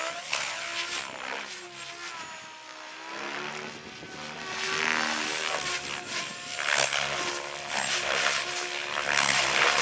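SAB Raw 700 electric RC helicopter flying aerobatics: rotor blade whoosh and motor whine, rising and falling in pitch as it swoops and passes. It is quieter while the helicopter is high overhead and louder as it comes back down low, over the second half.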